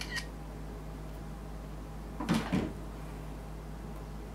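Keyboard parts being handled on a desk: a light click at the start, then two quick knocks a little over two seconds in. A steady low hum runs underneath.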